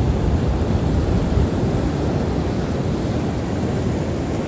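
Steady wind rumble on the microphone over the wash of ocean surf.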